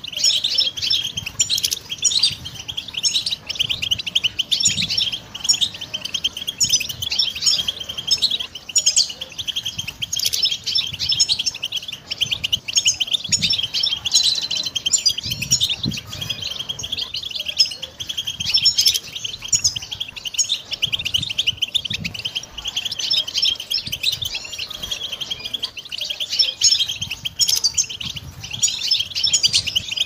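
European goldfinch singing: a fast, unbroken stream of high twittering chirps and trills.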